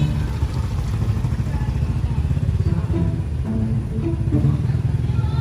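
Motor scooter engine running at low revs close by, a steady low rumble, with light background music playing over it.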